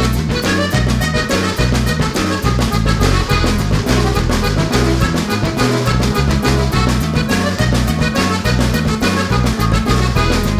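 Upbeat background music with a steady beat, brass and a moving bass line.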